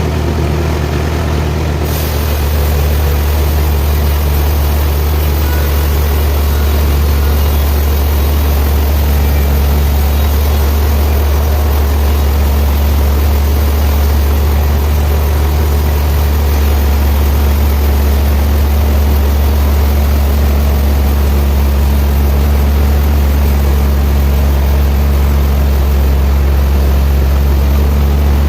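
Sawmill machinery running with a steady, loud low engine hum; about two seconds in the sound shifts and grows a little louder.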